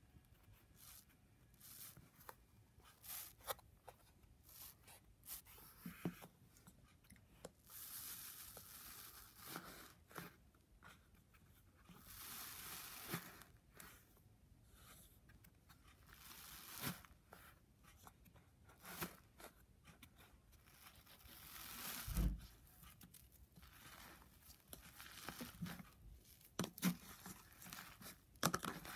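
Fingers poking, pressing and stretching slime in a plastic tub: soft crackles, pops and tearing sounds, with a few longer stretches of tearing and a louder thud about three-quarters of the way through.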